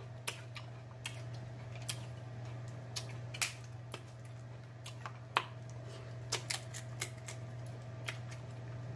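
Close-miked eating sounds of a seafood boil mukbang: irregular wet clicks and smacks of lips and chewing, with shellfish being peeled by hand. A steady low hum runs underneath.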